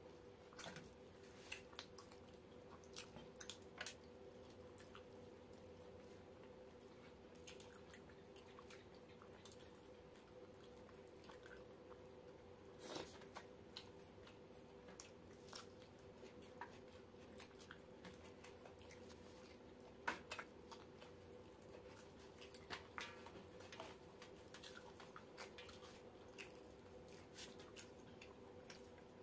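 Faint sounds of roti and chicken curry being eaten by hand: soft chewing and squishing, with scattered small clicks and smacks, a few of them louder, over a steady faint hum.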